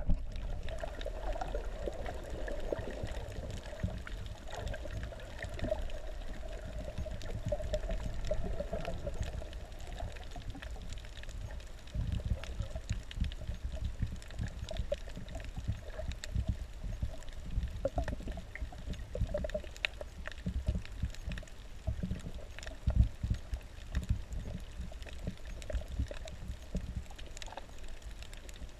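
Water sloshing and gurgling, heard underwater just below the surface, over a low rumble and scattered small crackles and clicks. A faint hum runs through about the first third.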